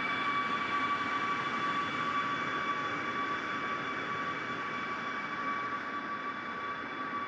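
Parked jet airliner's turbines whining steadily: a high, even tone over a rushing hiss, easing slightly toward the end.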